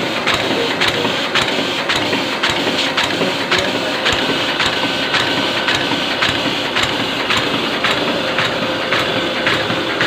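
Ryobi 520 offset printing press running steadily. Its mechanism clatters in a regular rhythm of about two clicks a second over a constant mechanical hum.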